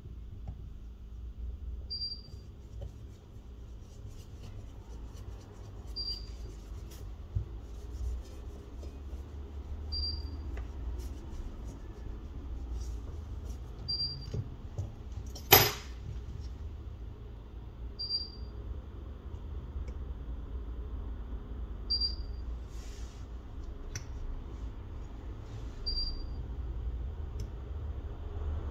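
A short, high electronic beep repeating regularly every four seconds over a low steady hum, with faint scattered clicks and taps of small tools during phone-repair work. One sharp click about halfway through is the loudest sound.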